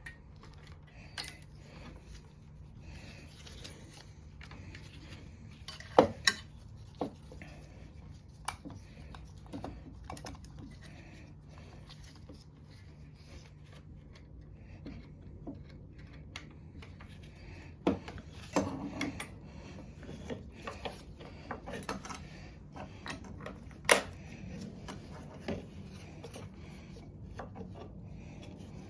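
Small metal parts and tools handled on a work surface: scattered clicks, clinks and light knocks, a few of them sharper and louder, over a faint steady hum.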